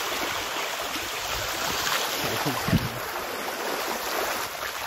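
Mountain bike tyres ploughing through shallow floodwater: a steady rush of splashing spray, with one short knock a little over halfway through.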